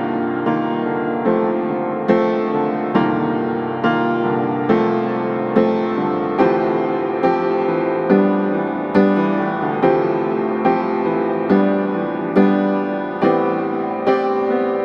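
Background piano music, notes struck at an even, unhurried pace and left to ring.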